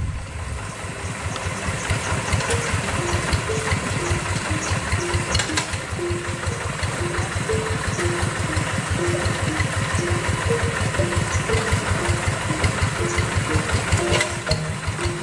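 Single-cylinder diesel engine of a two-wheel hand tractor running steadily, its firing strokes coming as evenly spaced pulses.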